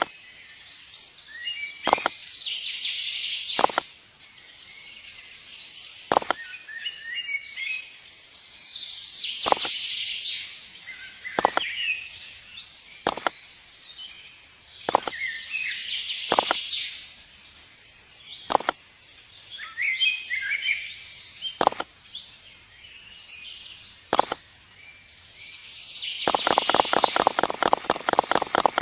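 Birds chirping and twittering, with a sharp knock about every two seconds. Near the end a fast, steady run of taps sets in.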